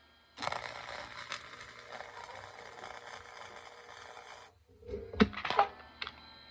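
Electric arc welding: a steady crackling sizzle of the arc for about four seconds that cuts off sharply, followed by a few sharp knocks and clicks.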